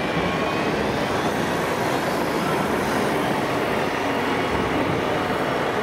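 Steady, even din of a busy indoor model show, with a 1:16-scale RC heavy-haul truck and trailer driving through; no single sound stands out.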